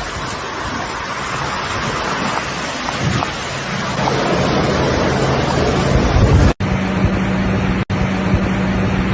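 Storm and flood footage sound: a loud, steady rush of water and wind buffeting the microphone, with a low vehicle-engine hum under it in the second half. The sound cuts out abruptly twice for an instant.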